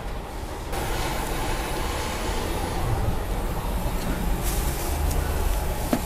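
Steady low rumble of a busy open-air kitchen, with a couple of light clatters about four and a half seconds in and near the end.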